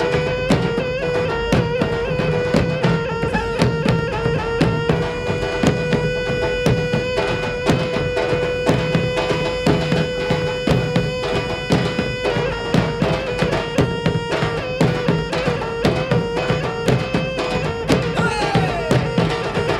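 Traditional Minangkabau music for the Galombang dance: quick, busy drumming and struck percussion over one long note held without a break, with a melody moving above it.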